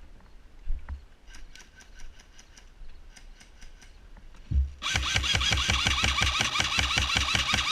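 Airsoft rifle firing a long full-auto burst of about three seconds, its evenly spaced shots at roughly eight a second, starting after a single thump. Fainter short bursts of airsoft fire come a few seconds earlier.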